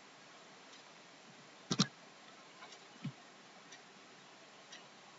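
Quiet room tone with a sharp double click a little under two seconds in and a soft low knock about three seconds in. Faint ticks repeat about once a second through the second half.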